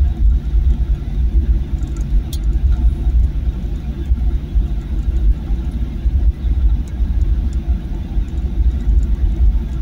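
Cabin noise inside a Boeing 737-900 taxiing on the ground: a steady low rumble from its CFM56-7B engines at idle and the wheels rolling over the taxiway, with a faint click about two seconds in.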